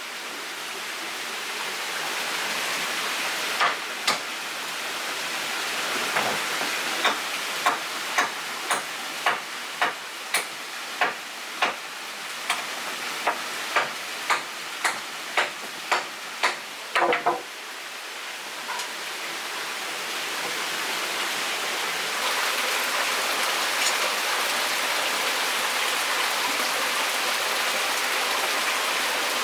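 Steady rushing water noise, fading up at the start and growing louder about two-thirds of the way through. Over its first half runs a series of about twenty sharp knocks, roughly one or two a second, that stop a little past the middle.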